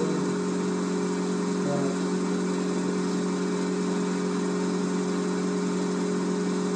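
Small bench-top electric motor spinning a belt-driven shaft and rotor at constant speed, a steady hum with an even whir over it.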